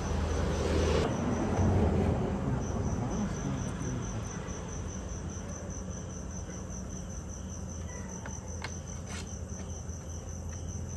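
Crickets chirping in a steady, evenly pulsed high trill over a low steady hum, with a few faint clicks in the second half.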